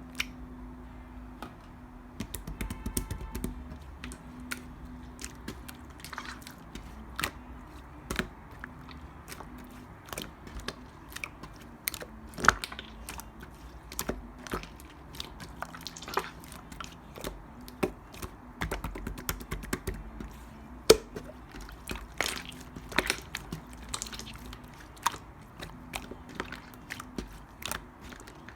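Thick yogurt-type slime being squeezed and pressed by hand, making irregular sticky clicks and pops of trapped air, several a second at times, over a faint steady hum.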